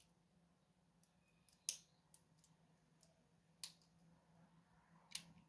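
Faint, sharp clicks of a hook pick and tension wrench working the spool pins of an Abus 76/40 lockout padlock: a few scattered ticks and three louder clicks spaced about two seconds apart.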